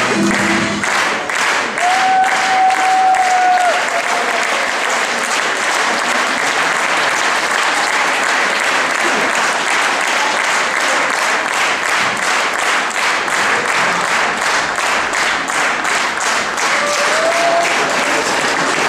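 Audience applauding steadily as the music stops just after the start. A long held call rises above the clapping about two seconds in, and a shorter one near the end.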